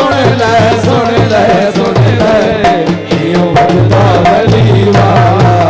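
Folk music with a steady hand-drum beat under a melody line, without words.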